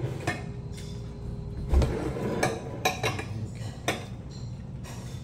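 Metal chopsticks and a spoon clinking and scraping against a stainless steel bowl while mixing barley rice and vegetables, about five separate clinks.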